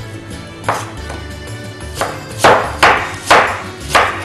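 A knife chopping onion on a wooden cutting board, about six sharp strikes spaced unevenly and coming faster in the second half, over steady background music.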